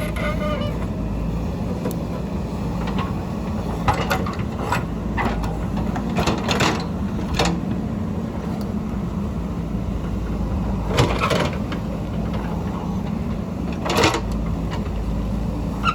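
JCB backhoe loader's diesel engine running steadily under work, with sharp knocks and clanks every few seconds as the machine digs.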